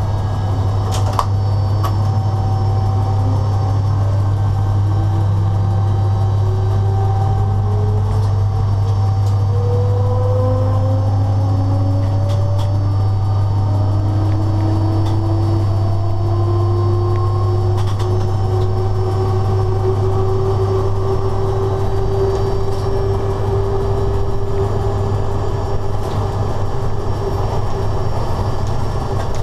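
Cab noise of a BDZ class 45 electric locomotive under way: a loud, steady deep hum with several whines slowly rising in pitch as the train gathers speed, and a few sharp clicks.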